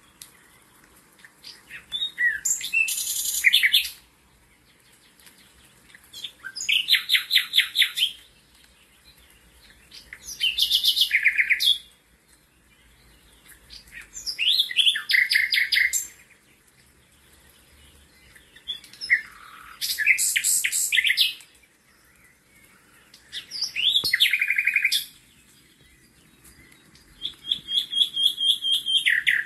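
A songbird singing: about seven high, two-second phrases of rapid repeated notes and trills, each followed by a pause of about two seconds.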